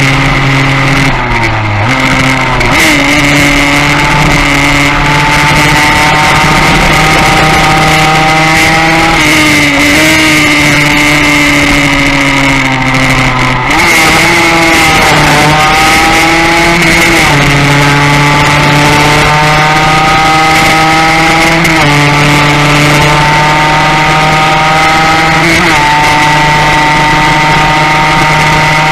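Classic Yamaha racing motorcycle's engine heard from on board at high revs under racing load, its pitch holding steady for stretches and stepping with each gear change. About 14 seconds in the throttle is briefly eased, then the engine revs back up.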